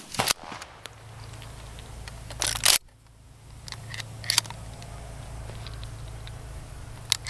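Clicks and knocks of a shotgun being handled, with a brief loud scraping rustle that stops abruptly about two and a half seconds in, over a steady low hum.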